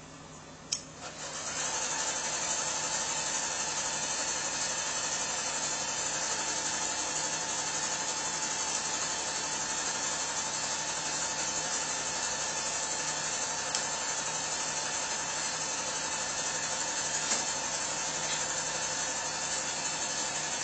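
Kitchen tap running in a steady rushing stream, switched on about a second and a half in, with a sharp click just before it starts.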